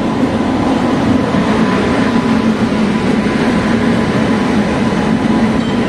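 Locomotive-hauled passenger train pulling in along the platform, the locomotive passing close by. It makes a loud, steady rumble with a thin, steady high hum over it.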